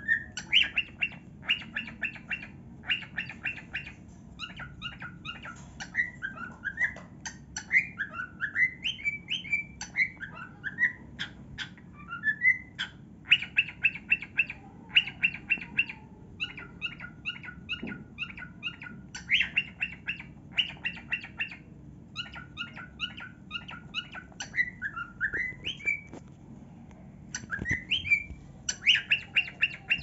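Pet cockatiel singing and chattering: runs of rapid, pulsed chirps broken up by short rising whistled notes, going on throughout.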